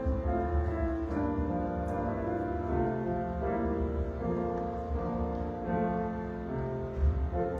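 Slow instrumental offertory music led by piano, with held chords over a sustained bass line.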